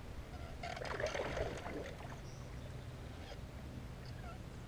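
Faint splashing and rustling of brush as a hooked bass is fought in the branches beside a kayak, loudest for about a second near the start.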